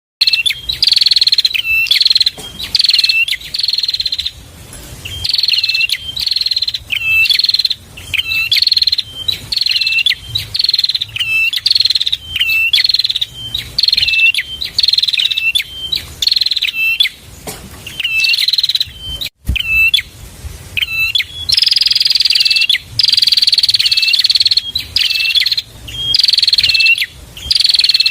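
Prinia (prenjak) calling over and over: loud, sharp, high chirps that fall in pitch, given in quick runs with short pauses between them.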